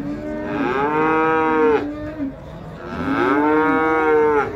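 Cattle mooing loudly and close: two long moos, the first starting right away and the second about three seconds in.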